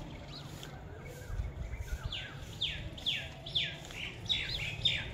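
A bird calling: a run of sharp, falling notes about twice a second, starting about two seconds in, after a few soft chirps. A low, steady rumble lies underneath.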